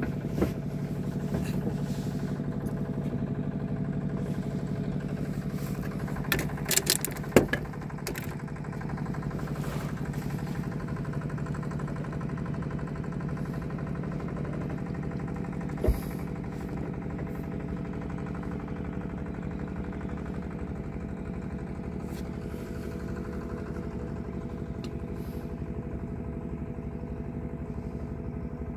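A small boat's engine running steadily at low speed, with a few sharp knocks about seven seconds in and another single knock about sixteen seconds in.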